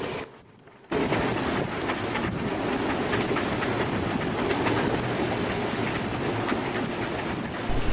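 Storm-force wind blasting across the microphone in a steady, dense rush, broken by a brief dropout under a second in.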